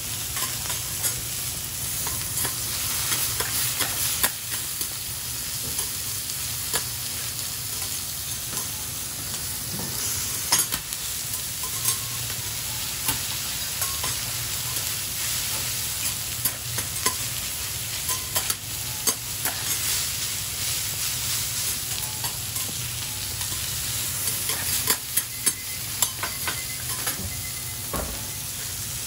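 Hiroshima-style okonomiyaki, squid, shrimp and pork sizzling steadily on a hot teppan griddle. Metal spatulas click and scrape against the griddle plate now and then, in small clusters.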